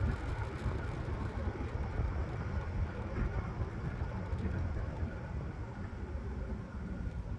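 Wind buffeting the microphone over the rolling rumble of an electric scooter riding steadily along an asphalt road.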